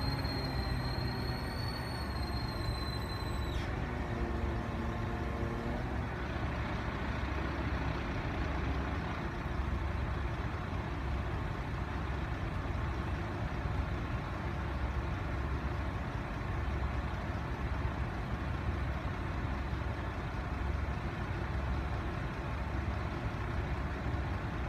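Heavy diesel engine of a crane truck running steadily, a low rumble, with a high whine that cuts off about three seconds in.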